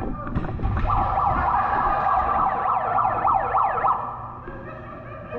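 A siren-like wailing tone with quickly rising and falling pitch, sounding for about three seconds from about a second in, then fading.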